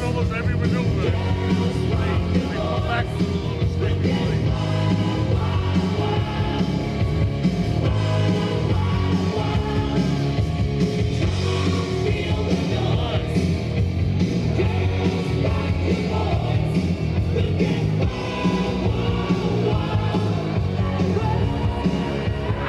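Rock music with a singing voice over a steady, pulsing beat.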